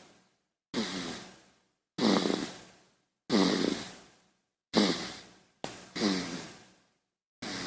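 A baby snoring: about six short snoring breaths, each starting sharply with a low, pitched rattle and fading away, separated by silence.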